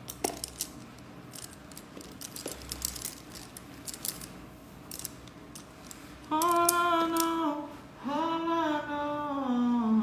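A woman's voice sings two long held notes, the second gliding down in pitch near the end. Before that come several seconds of faint small clicks.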